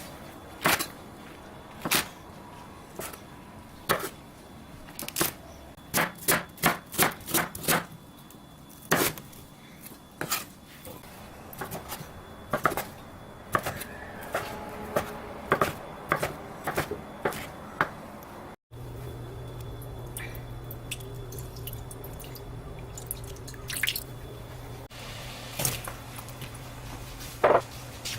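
Kitchen utensils knocking and tapping in irregular sharp strokes, with a quick run of them partway through. After an abrupt cut a steady low hum sets in under a few more clinks.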